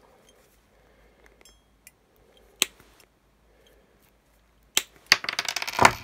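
Snips cutting through an ethernet cable just behind its RJ45 plug: a single click, then a quick run of crackling, crunching clicks as the blades bite through the jacket and copper wires, ending in a sharp snap near the end.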